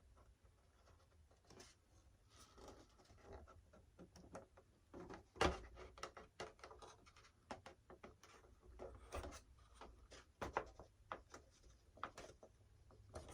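Faint hand-handling noise: scattered light clicks and taps with some rubbing, as a model airplane's tail piece is positioned and centered by hand, with one sharper tap about five seconds in.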